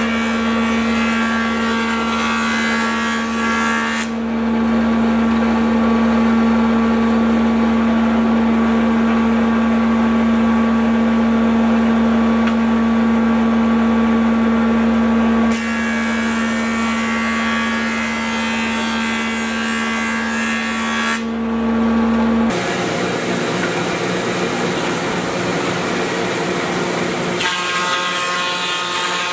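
Jointer running with a strong steady hum while a rough-sawn ash board is face-jointed, with harsher cutting noise during two passes: one at the start and one from about 15 to 21 seconds in. About 22 seconds in, the sound switches abruptly to a thickness planer running, and the board starts feeding through it near the end.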